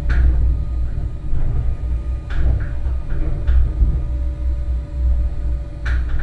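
Low, uneven rumble of the Schlossbergbahn funicular car running along its inclined track, heard from inside the cabin, with a faint steady hum and a few sharp clicks spread through it.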